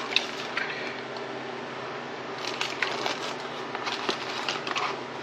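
Light clicks, taps and rustles from hands handling small parts, a few at the start and a denser run through the second half, over a steady background hum.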